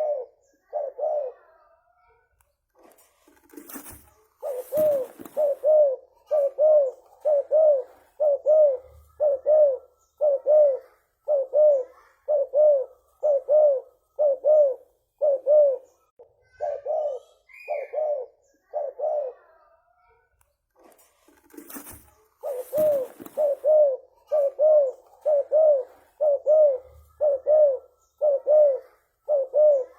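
Spotted dove (tekukur) cooing in a long, fast run of short low coos, about one and a half a second, pausing twice. Two short bursts of rustling noise come about 4 seconds in and again near the 22-second mark, and a single higher chirp comes near 18 seconds.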